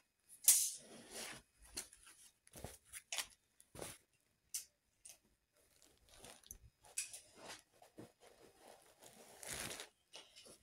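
Cushions and upholstery fabric being handled and moved: irregular soft rustles and scuffs, with a sharper one about half a second in and a longer rustle near the end.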